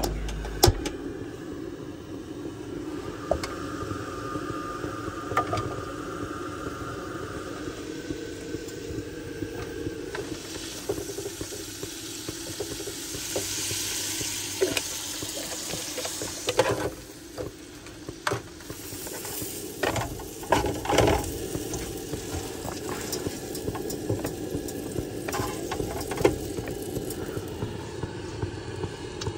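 Food cooking over heat, likely the milkweed shoots being made: a steady hiss of cooking, with scattered light clinks and a few louder knocks, like a utensil against the pot or pan, in the second half.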